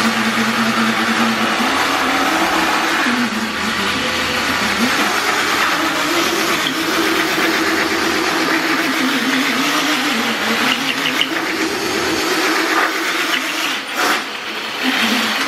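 Electric scooter doing a burnout on concrete: the motor drives the rear wheel while the brake is held, a motor whine that rises and falls in pitch over the hiss of the tyre scrubbing the floor. It stops suddenly near the end. The controller on this scooter has no brake cut-off, so the power stays on under braking.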